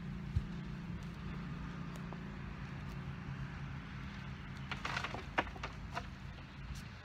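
Dirt and stones knocking and rattling onto a wooden casket in an open grave, in a cluster of sharp hits about five seconds in, over a steady low engine hum.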